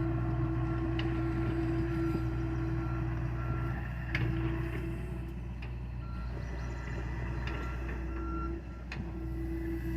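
John Deere excavator's diesel engine running steadily while its alarm beeps repeatedly, with a few sharp knocks about a second, four seconds and nine seconds in.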